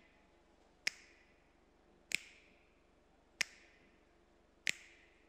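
Four sharp finger snaps, evenly spaced about a second and a quarter apart, keeping time with near silence between them.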